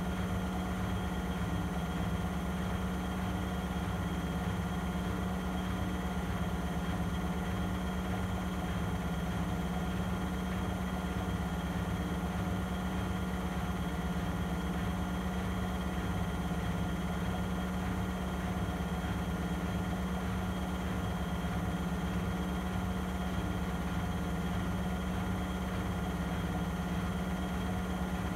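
Vestel CMI 9710 front-loading washing machine in its final spin at 800 rpm: a steady hum and whir that holds the same speed throughout.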